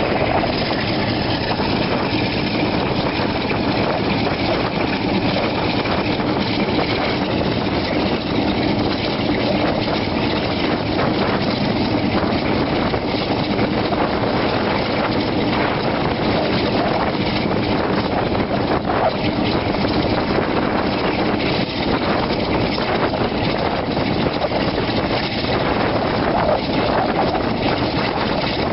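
Class 47 diesel locomotive's Sulzer 12LDA28 twin-bank diesel engine working steadily under power on a climb, heard from the open window of the coach behind it. Wheel and rail noise from the moving train runs underneath it.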